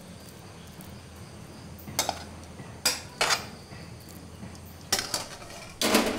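A spoon scraping and clinking against a metal pan as cooked food is emptied out onto a plate. There are short, sharp clatters about two and three seconds in, another near five seconds, and a longer, louder scrape near the end, over a steady low hum.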